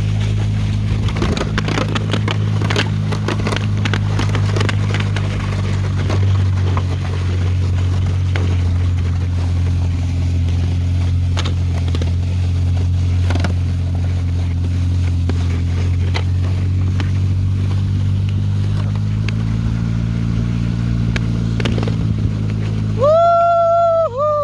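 A Polaris vehicle's engine running steadily, with scattered clicks and crackles over it. Near the end, a dog gives two short howling whines that rise and then fall, the second trailing off.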